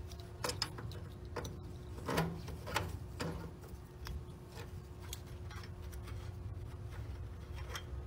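Scattered light clicks and taps from gloved hands unscrewing and opening the service ports on a tankless water heater's isolation valves, over a steady low hum.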